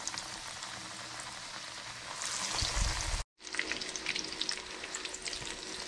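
Breadcrumb-coated crappie fillets sizzling as they fry in hot oil in a pan, a steady crackling hiss. The sound cuts out for an instant a little past halfway.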